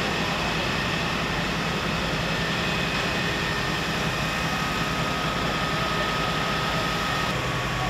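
Fire engine's diesel engine running steadily, a constant low rumble with a faint steady whine above it.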